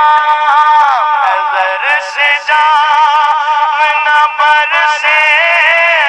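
A high-pitched voice singing a slow melody, with long held notes that bend and waver in pitch. The sound is thin, with no bass.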